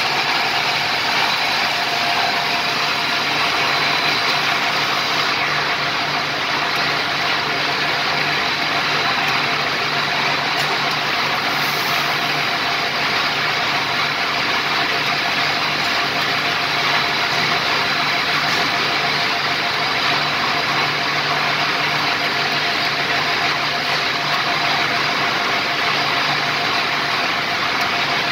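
Tape plant extrusion line machinery running: a loud, steady industrial drone with a few constant hum tones, one low, one mid and one high-pitched whine.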